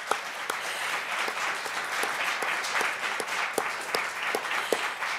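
Audience applauding steadily, with single claps standing out from the general clapping.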